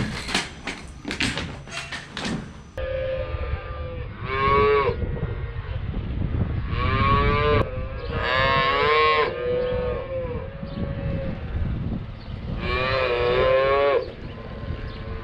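Plastic buckets clattering and knocking as they are handled, then calves in hutches bawling: several calls of about a second each, over a low steady rumble.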